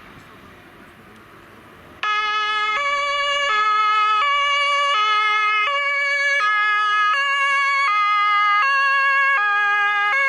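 German fire brigade two-tone siren (Martinshorn). It starts suddenly about two seconds in after faint street noise, then sounds loud and steady, alternating between two pitches about every three-quarters of a second.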